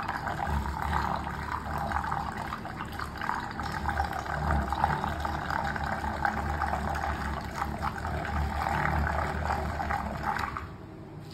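Electric overhead lab stirrer running, its spinning shaft churning polyurethane foam mix in a small cup: a steady hum with a wet, swishing churn. It stops near the end.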